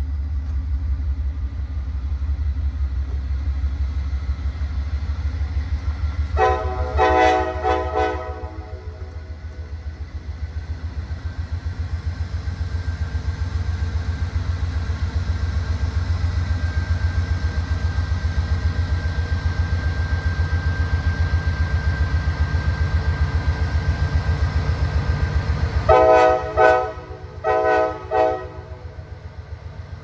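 Diesel locomotive engine running with a steady, fast-pulsing low rumble as the train passes, while the locomotive's air horn sounds a few short blasts about six seconds in and three more near the end.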